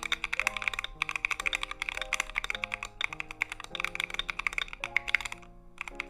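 Fast typing on a mechanical keyboard with stock, unlubed Akko CS Lavender Purple tactile switches in a Tofu60 case: a dense run of keystroke clacks that pauses briefly near the end. Background music plays under it.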